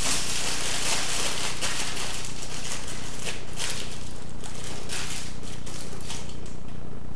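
Aluminium foil crinkling in soft, scattered rustles as a sheet is pressed and wrapped around a sculpture armature, over a steady low background hum.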